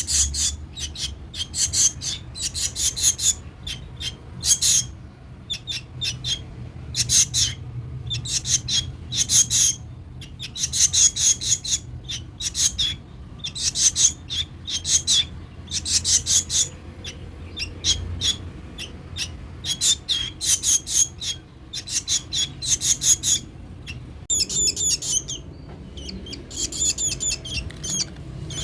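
Baby bird chirping in rapid trains of short, high-pitched calls, burst after burst with brief pauses between.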